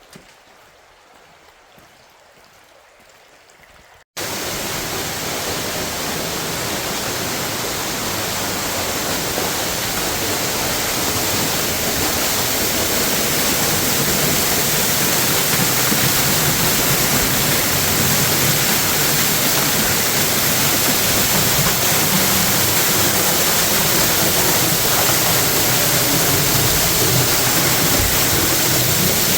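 Waterfall rushing, loud and steady. It cuts in abruptly about four seconds in after a faint hiss.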